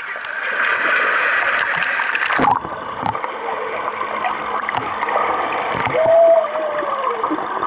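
Children jumping feet-first into a swimming pool, water splashing and churning; about two and a half seconds in the sound abruptly turns muffled, heard from underwater, with bubbles rushing and gurgling. A short muffled wavering tone comes through about six seconds in.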